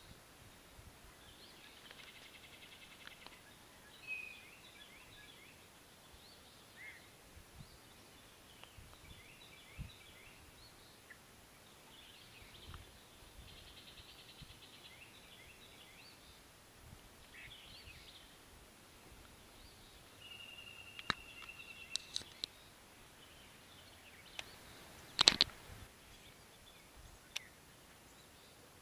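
Songbirds chirping in short repeated phrases, with one high note held for about a second and a half partway through. A few sharp clicks come near the end, the loudest a single click about 25 seconds in.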